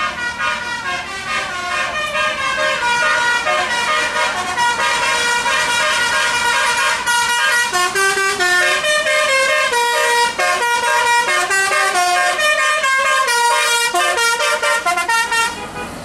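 Telolet horn on a Mercedes-Benz OH 1626 coach playing a quick tune of several horn tones, the notes changing pitch every fraction of a second with no break.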